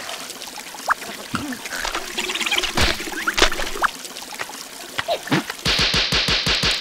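Cartoon sound effect of a thin stream of liquid pouring from a spout and spattering into a puddle, with a few short squeaks and grunts from the characters. Near the end comes a fast rhythmic run of pulses.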